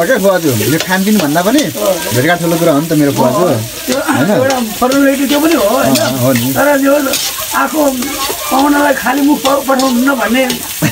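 Chopped onions sizzling in a metal wok over a wood fire, with a spatula stirring and scraping the pan. A pitched melody with wavering, held notes runs over it.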